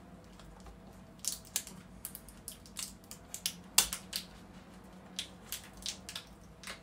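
Irregular light clicks and crackles of a laptop LCD panel being handled and worked free from its lid, the loudest about four seconds in.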